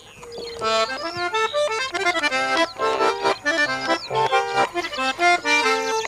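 Accordion playing a lively tune of quick chords and melody notes, coming in about half a second in.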